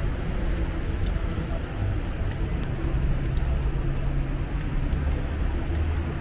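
Steady low rumble of city street ambience, mostly vehicle traffic, with faint distant voices.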